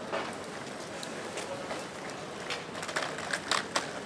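Outdoor city street ambience, a steady background hum and murmur, with a quick run of sharp clicks and knocks from about two and a half seconds in.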